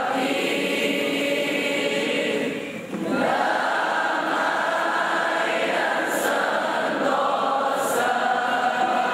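A large group of students singing a school hymn together in unison like a choir, in long held phrases with a brief pause about three seconds in.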